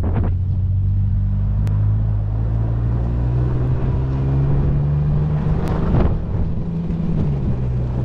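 A Toyota 4x4's engine running as the truck drives, its pitch rising gently a few seconds in and easing back near the end, with a short knock about six seconds in.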